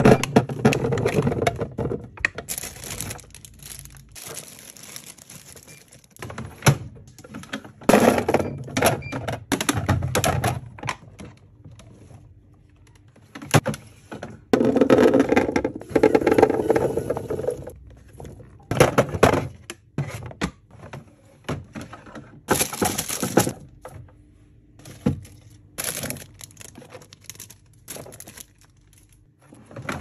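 Small round fruit poured into clear plastic fridge bins: cherry tomatoes and blueberries clattering and rolling across the plastic. Between the pours there are sharp knocks and clacks from the bins being handled.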